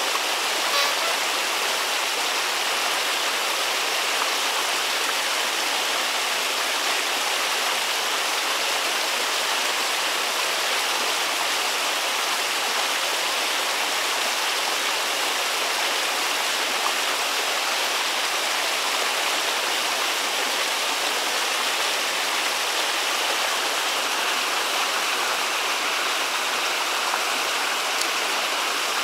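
Flowing water rushing steadily, as of a stream or small weir.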